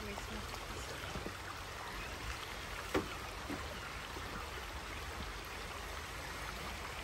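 Shallow, rocky creek running steadily over stones, with one short sharp knock about three seconds in.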